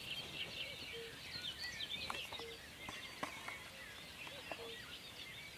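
Faint chorus of small birds chirping and twittering high up, with a short low note repeating every second and a half or so.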